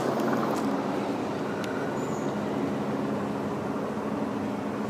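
Helicopter flying overhead: a steady, low drone of engine and rotor.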